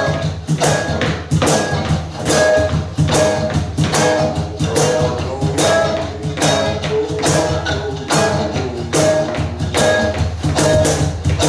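Live band playing an instrumental passage: a steady drum beat over a sustained bass line, with a short melodic figure repeating, and no singing.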